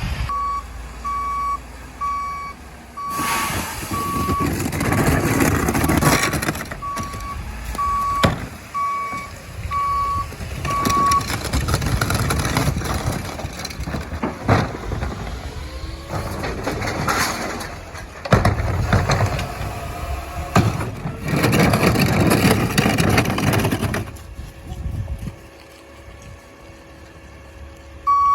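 Garbage truck's backup alarm beeping about once a second for the first ten seconds or so, then stopping and starting again at the very end. Over it come several loud surges of engine and packer noise, each lasting a few seconds, as the truck's compactor works the load.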